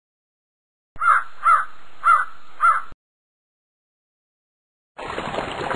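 Four harsh bird caws about half a second apart, then a steady rushing noise that starts near the end.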